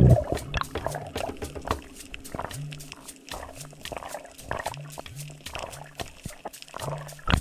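Underwater sound over a coral reef, picked up by the diver's camera: a dense crackle of short clicks, with short low hums coming and going.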